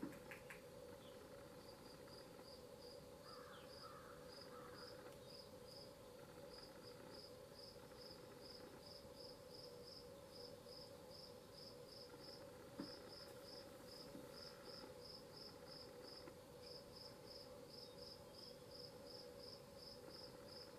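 Near silence with a faint cricket chirping, about two short high chirps a second, over a low steady hum.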